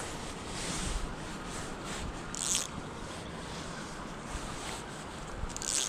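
Steady rush of flowing creek water, with two short hissing swishes about two and a half and five and a half seconds in.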